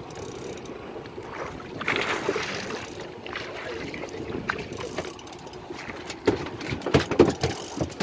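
Water splashing against the boat's side as a fish is landed, then, from about six seconds in, a run of sharp thuds and slaps as the fish flaps on the fiberglass deck.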